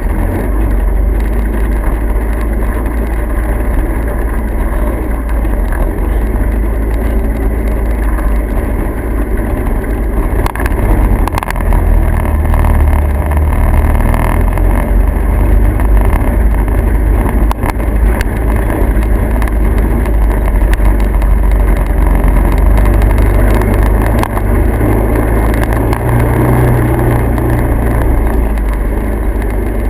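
Steady, loud low rumble of a motor vehicle on the move, with no clear changes in pitch.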